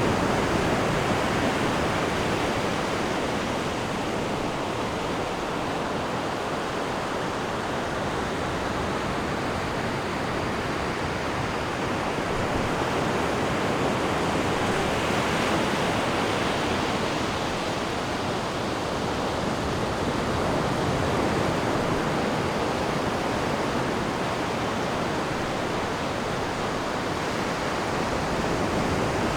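Ocean waves breaking and washing on the shore, a continuous surf rush that swells and eases every several seconds.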